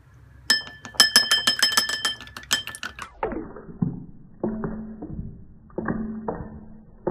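Wooden chopsticks beating an egg in a porcelain rice bowl: a fast run of ringing clinks against the bowl, stopping about three seconds in. Lower held tones follow in the second half.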